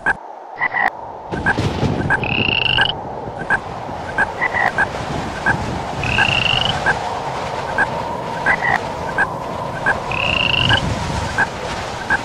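Frogs croaking in short calls repeated about once or twice a second over a steady rushing hiss. A higher rising chirp sounds three times.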